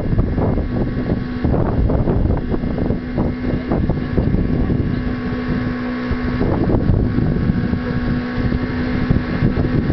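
Motor of a wooden canoe running at a steady pitch while under way, with wind buffeting the microphone.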